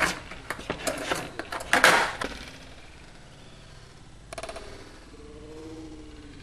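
Skateboard knocking and clacking on pavement as the rider steps on and shifts the board: a quick series of sharp clacks in the first two seconds, loudest near two seconds in, then a short rattle about four seconds in.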